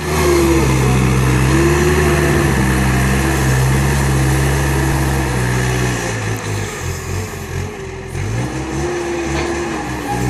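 Diesel engine of a Merlo telehandler working under load as it climbs and rolls a silage clamp. The engine note holds steady for about six seconds, then turns uneven and a little quieter, with the pitch dipping and rising again near the end.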